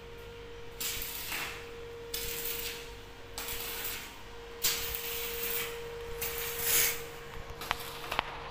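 Arc welding on a steel lift-cage railing: the arc crackles and hisses in several short bursts, a series of tack welds, over a steady hum. Two sharp clicks come near the end.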